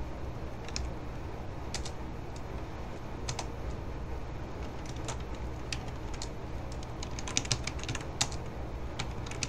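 Computer keyboard typing: scattered single keystrokes, then a quicker run of keys near the end, over a steady low hum.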